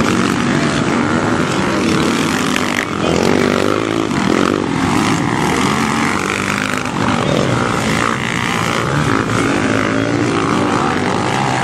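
Motocross bikes racing, engines revving up and down continuously as they work the track.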